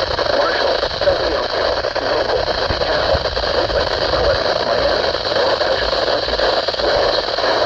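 Steady radio static from a receiver tuned to a weak, distant NOAA Weather Radio station, a constant hiss with no clear voice or alert tone coming through.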